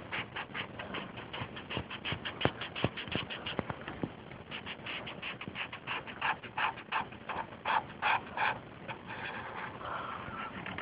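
Felt-tip marker scratching on paper in quick repeated strokes while drawing, with a short pause about four seconds in before the strokes resume.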